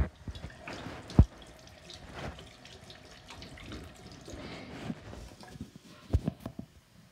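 Bathroom-sink faucet running while hands are washed under the stream. There is a sharp knock about a second in and another thump near the end.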